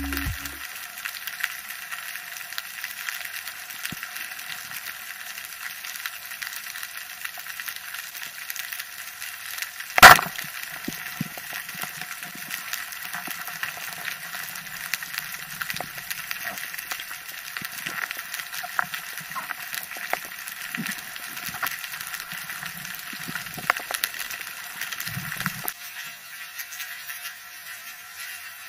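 Underwater ambience of steady fine crackling and scattered small clicks, with one sharp, loud crack about ten seconds in: a speargun being fired.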